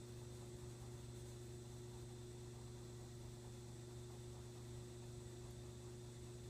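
Quiet room tone: a steady low hum with faint hiss, and no distinct sounds from the drawing.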